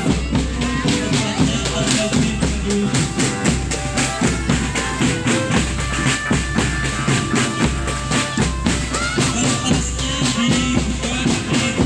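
Marching drum band playing: a steady beat of snare and bass drums with a melody line over it.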